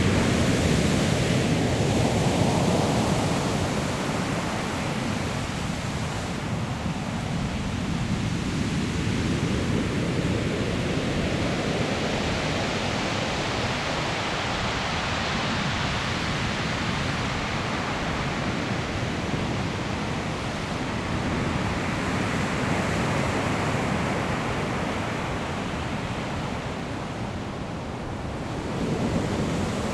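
Ocean surf on a pebble shore: continuous wash of waves, with one wave breaking louder right at the start and another near the end.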